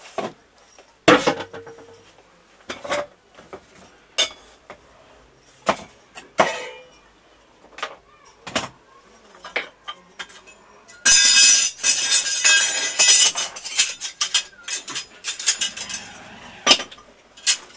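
Eating by hand from a steel plate: scattered clinks and knocks of fingers and food on the metal. About two-thirds of the way through comes a few seconds of louder, dense clattering.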